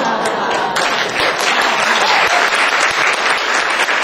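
Audience laughing, breaking into steady applause about a second in.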